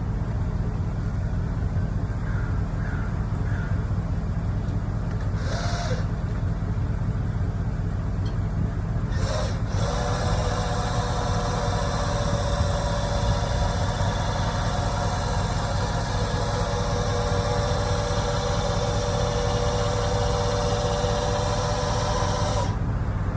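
Electric lift motor of a Makinex PHT-140 powered hand truck, whining steadily for about thirteen seconds as it raises a load, then cutting off sharply. A steady low rumble runs underneath, and two brief scraping sounds come before the whine starts.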